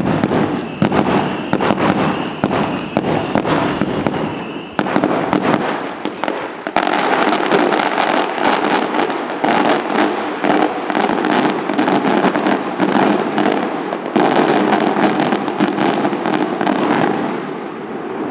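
Aerial fireworks display: a dense, continuous barrage of bursting shells and crackling stars. A steady high-pitched tone runs through the first few seconds; the crackling turns denser and louder about seven seconds in and fades near the end.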